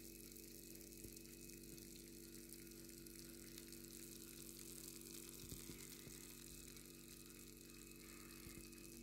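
Near silence: a faint, steady electrical hum with background hiss.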